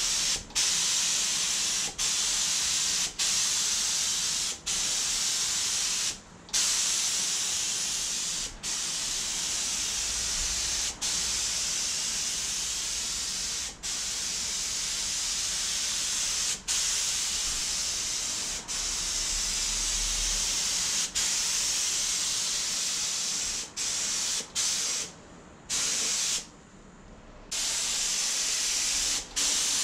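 Gravity-feed paint spray gun hissing with compressed air as paint goes onto a car panel, stopping briefly every couple of seconds between passes, with two longer breaks near the end.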